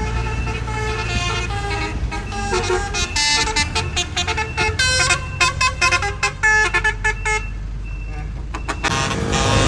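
Truck horns sounding over a low engine rumble: a multi-tone horn plays a rapid string of short notes at changing pitches, then eases off about three-quarters of the way through.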